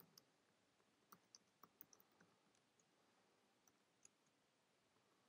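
Faint keystrokes on a computer keyboard: a quick run of clicks in the first couple of seconds and a few more near four seconds in, over near silence.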